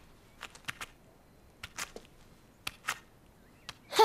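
Cartoon footstep effect for a slowly walking tortoise: soft short taps, mostly in pairs, roughly once a second.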